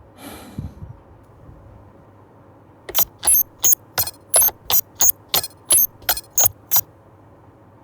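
A brief soft swish, then a run of about a dozen sharp mechanical clicks, a little under three a second, like a ratchet or dial being turned.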